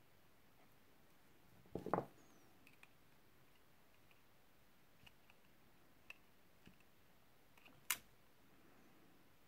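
Sparse clicks and taps from handling silver-plated copper wire and small hand tools: a short clatter about two seconds in, a few faint ticks, and one sharp click near the end, with near silence between.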